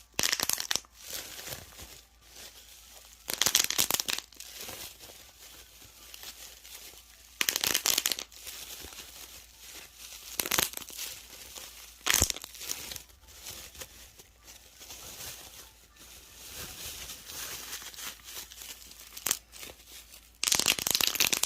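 Repeated bursts of crinkling and popping a few seconds apart, with one sharp single pop about twelve seconds in.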